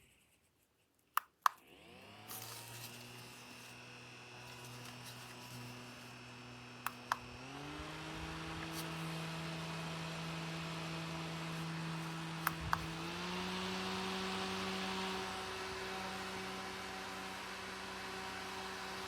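Mini USB clip fan clicked on at its push button and spinning up to a steady motor hum. It is then clicked up twice, about 7 and 12 seconds in, through its second and third speeds, and the hum steps up in pitch and gets louder each time.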